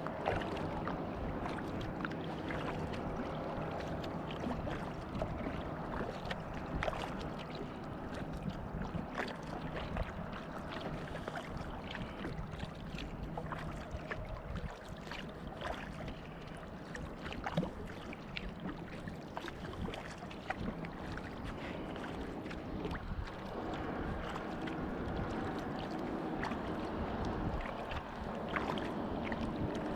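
Kayak paddles dipping into calm lake water: irregular small splashes and drips over a steady wash of water.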